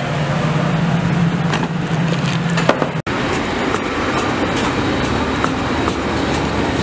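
Steady street-stall background noise with traffic, with a low hum for the first few seconds. After a cut, a few light taps of a cleaver slicing barbecued red pork on a wooden chopping board.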